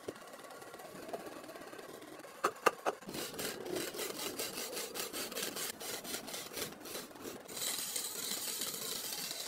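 Wood lathe turning a square wooden blank for a cot leg: three sharp knocks about two and a half seconds in, then a chisel cutting the spinning wood with a rapid rhythmic chatter, about four strokes a second, that gives way near the end to a steady hiss of cutting as the blank runs round.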